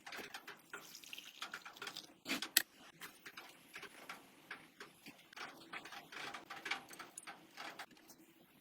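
Hand work on small parts: irregular light clicks, taps and scraping, with two sharper clicks about two and a half seconds in.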